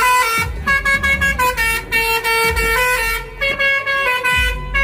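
A truck's basuri telolet horn playing a quick tune, several notes sounding together and stepping from pitch to pitch, with brief breaks between phrases. There is a low rumble underneath.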